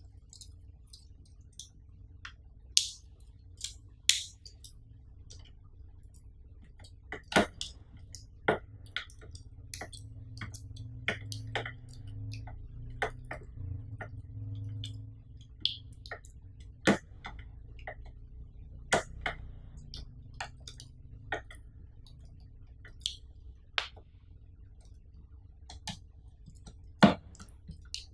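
Irregular clicks, taps and light knocks of a plastic TV stand and small screws being handled and fitted against the back panel of a flat LED TV.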